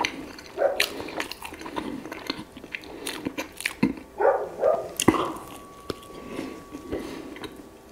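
Close-miked eating: biting and chewing whole-wheat bread with honey, with irregular wet clicks and crunches.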